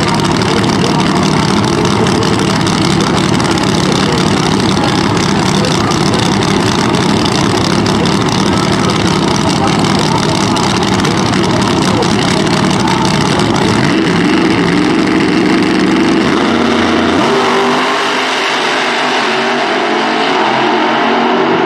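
Two Pro Nitrous drag cars' engines running loud at the starting line, then launching about three-quarters of the way through: the pitch climbs as they accelerate away down the track.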